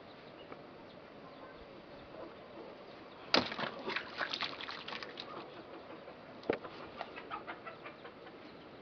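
A sharp knock, then a quick run of clicks and light scrapes, and another knock a few seconds later: hands handling a knife and a small bar of laundry soap.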